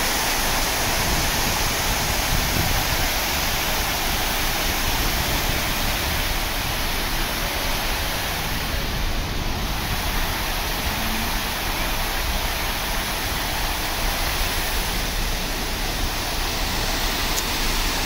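Dancing water fountain: rows of vertical jets spraying and splashing back into the basin, a steady rush of water.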